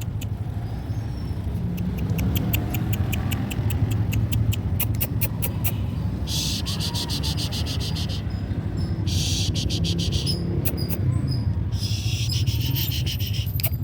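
Insects calling: a run of quick, sharp high ticks that speed up, then three bursts of high, hissing buzz a few seconds apart, over a steady low rumble.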